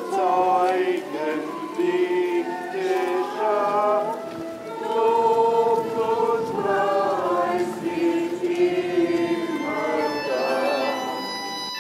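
A group of voices singing together, choir-like, in a slow chant-like song with wavering held notes.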